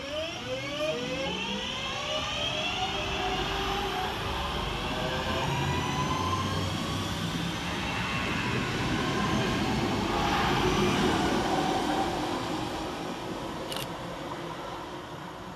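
Class 323 electric multiple unit accelerating along the platform: its traction motors give a whine of several tones rising in pitch over the first few seconds, then the wheels and bogies rumble on the rails, loudest about ten seconds in, fading as the train draws away. One sharp click near the end.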